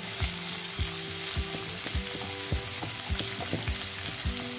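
Chopped onion sizzling as it goes into hot mustard oil in an aluminium kadhai, a steady frying hiss.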